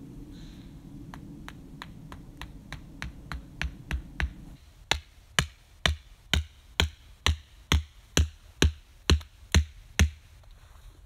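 A wooden tent stake being driven into the ground with steady blows, about two a second, which grow much louder about halfway through.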